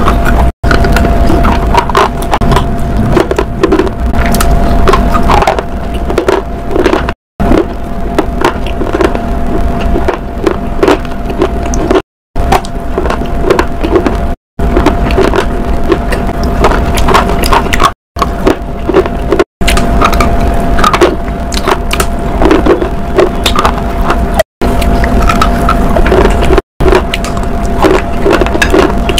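Close-miked chewing and crunching of firm, crunchy sticks, a dense run of crackles and snaps over a steady low hum. The sound drops out to dead silence for a moment about eight times where the recording is cut.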